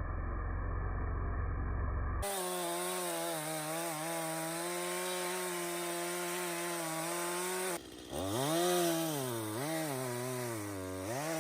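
Two-stroke Stihl chainsaw cutting a notch into a large ash trunk. Muffled at first, then the engine runs at a steady pitch until a brief dip near eight seconds, after which its pitch rises and falls repeatedly as the chain loads and frees in the cut.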